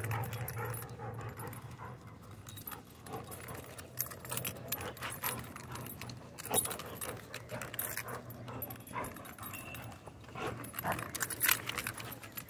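A German Shorthaired Pointer tugging and shaking a rope toy. The metal tags on its collar jingle and clink on and off, with scuffling and rustling of the rope and the dirt.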